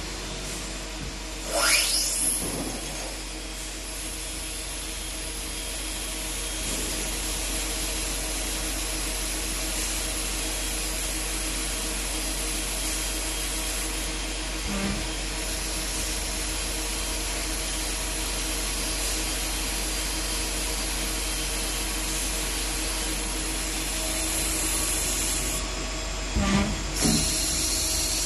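CNC lathe running with a steady machine noise and hum. About two seconds in a whine rises quickly in pitch as the spindle speeds up. There are short knocks around the middle and twice near the end.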